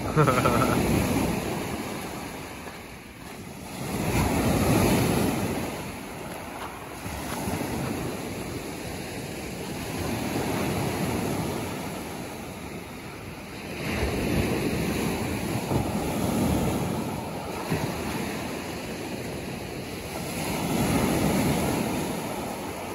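Surf breaking on a shingle or sand beach, the wash swelling and falling back about every five or six seconds, with wind buffeting the microphone.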